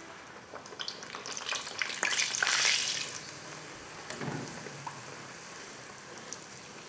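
Bhatura dough deep-frying in smoking-hot oil in an aluminium kadai, sizzling steadily while a slotted metal spatula presses it and it puffs up. The sizzle swells loudest about two to three seconds in, with a few light clicks.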